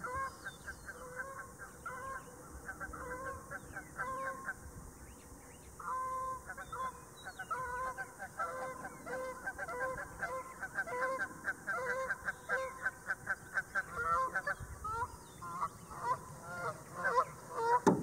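A flock of geese honking. The calls grow faster and louder toward the end. There is one sharp knock at the very end.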